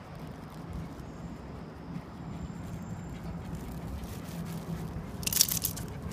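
Steady low rumble of traffic, with a brief loud rustle about five seconds in.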